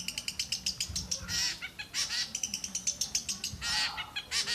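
Caged songbirds chirping: a rapid, repeated string of sharp high chirps, broken by a few longer warbled phrases.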